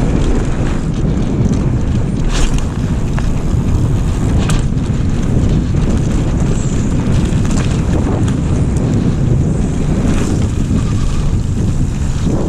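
Wind buffeting the microphone: a loud, steady low rumble, with a few brief clicks over it.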